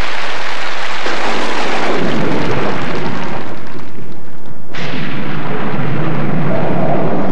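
Recorded thunderstorm: a steady rush of rain with rolling thunder, a fresh clap of thunder breaking in suddenly about four and a half seconds in.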